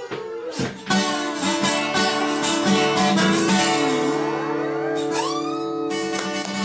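Two steel-string acoustic guitars playing a blues-rock tune, one strumming chords while the other plays lead lines, with a bent note about five seconds in.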